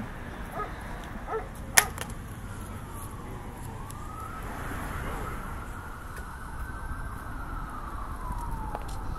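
An emergency-vehicle siren wailing slowly down and up over a steady low street rumble, with one sharp click about two seconds in.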